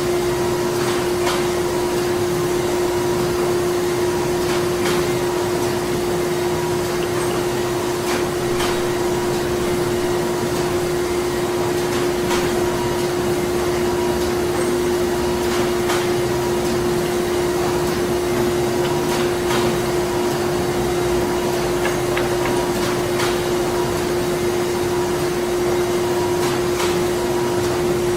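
Printing-plant machinery running steadily: a constant hum held on one note over a dense mechanical whir, with faint, irregular clicks and ticks now and then.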